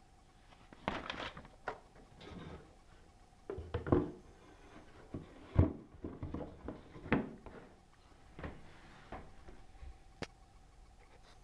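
Cardboard puzzle boxes being handled and moved about: irregular knocks, thumps and rustles, the loudest about four and about five and a half seconds in.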